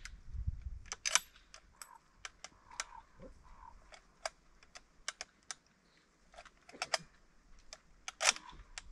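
Scattered sharp metallic clicks and clacks of a .303 Lee-Enfield bolt-action rifle being handled and loaded, with the two loudest clacks about a second in and near the end.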